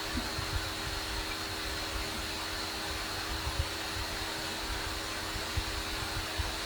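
Steady whirring of a computer's cooling fan, with a faint steady hum underneath and a few small low thumps.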